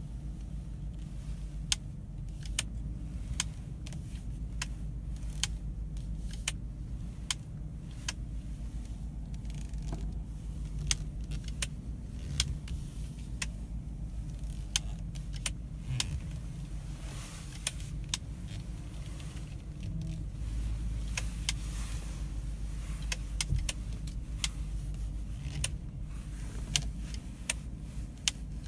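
A car running with a steady low drone, with sharp irregular clicks or ticks over it, about one or two a second.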